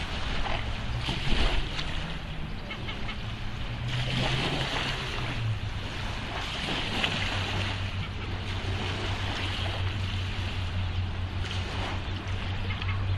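Outdoor water noise, splashing and lapping, with wind on the microphone and a low steady hum underneath that grows stronger about halfway through.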